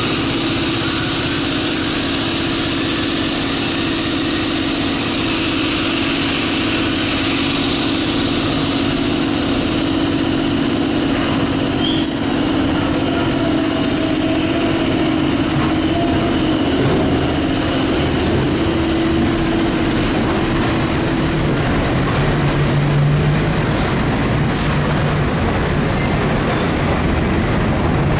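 London Underground train running through the station with a steady rail rumble and a held motor tone. The tone drops lower about three quarters of the way through.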